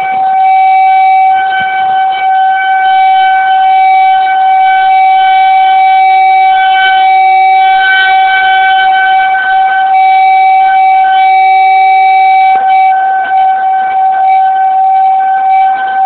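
Outdoor tornado warning siren sounding one long, steady, loud tone with a stack of overtones, holding the same pitch.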